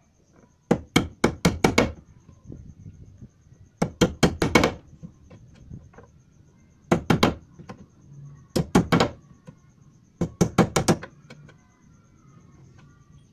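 Hammer tapping a small homemade nail chisel into the edge of a wooden wardrobe door to cut a keyhole slot: five quick bursts of light, sharp taps, a few strikes in each, with short pauses between.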